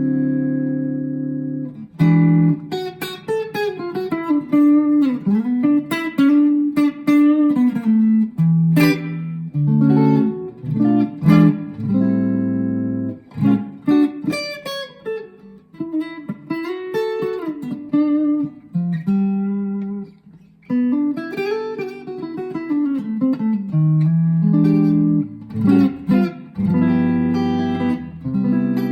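Schecter OL-PT-TH thinline electric guitar played through a VOX MINI5 practice amp, unprocessed: a ringing chord, then single-note phrases with string bends and chords, with brief pauses about two seconds in and two-thirds of the way through.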